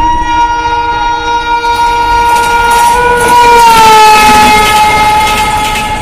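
Indian Railways electric locomotive sounding one long, steady horn blast as the train runs through at speed. The horn's pitch drops about three and a half seconds in as the locomotive passes, with the rush of the passing train swelling under it.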